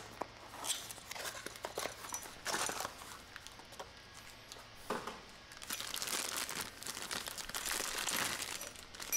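Plastic bag and cardboard packaging crinkling and rustling in the hands as a small 1¼-inch bar-sink drain strainer is unpacked. Scattered crinkles at first, becoming nearly continuous in the second half.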